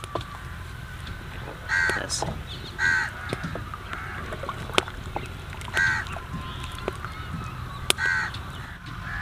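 A crow cawing about four times, short calls a second or more apart, with a couple of sharp clicks in between over a steady low background noise.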